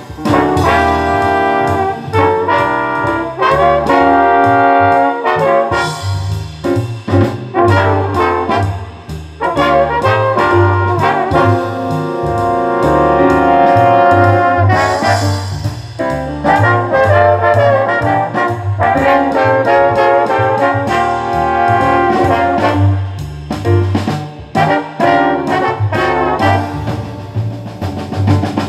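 Brass-led jazz music played from a CD on a Denon DCD-595 player through loudspeakers, running continuously with a steady bass pulse and no skips or dropouts.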